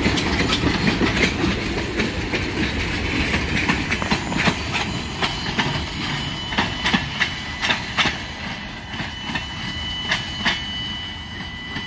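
Freight cars, coal gondolas and hoppers, rolling past on the rails, their wheels clicking over rail joints above a steady rumble. The clicks come thickest in the first eight seconds, then thin out and the rumble fades as the end of the train moves away, with a thin steady high tone in the second half.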